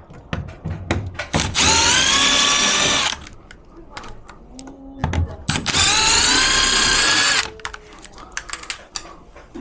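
Electric drill-driver running in two bursts of about a second and a half each, rising in pitch briefly as it spins up and then holding steady, with clicks and knocks of parts being handled between the bursts. This is typical of screws being driven out while the air conditioner is taken apart.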